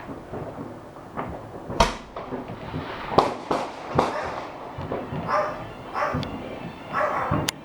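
Fireworks going off: a string of sharp bangs and cracks at uneven intervals, about five of them, the loudest a little over three seconds in.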